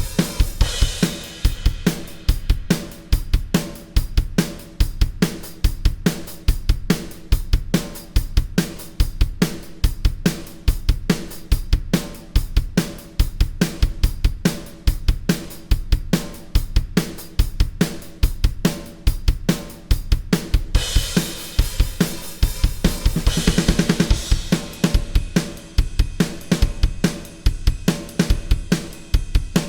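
A drum kit played alone with no other instruments: a steady beat on kick, snare and hi-hat. About 21 seconds in, cymbal crashes ring out, and a quick run of rapid hits leads into a busier chorus beat.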